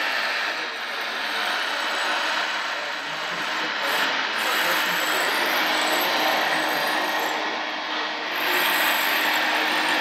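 Hydraulic pump and moving mechanisms of a radio-controlled Liebherr 956 model excavator running steadily as it digs and swings its bucket: a continuous mechanical whir whose level rises and falls a little as it works.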